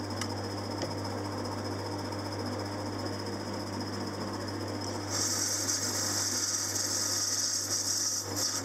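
Metal lathe running with a steady hum while turning a flywheel. About five seconds in, the cutting tool takes a cut, adding a high hiss that stops just before the end.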